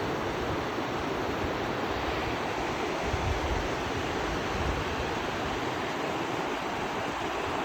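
A wide, fast mountain river rushing steadily over rapids. Wind buffets the microphone with low rumbles around the middle.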